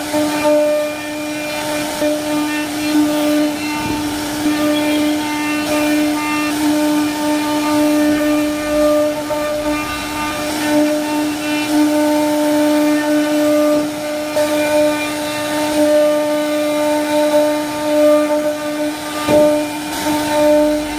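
CNC router spindle running at a steady high-pitched whine while its bit carves flutes into wood, the upper tones of the cut coming and going as the bit moves through the wood.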